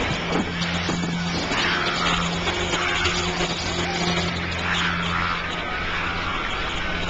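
A big fire burning: a dense, steady rushing noise with a low hum under it, from a film soundtrack.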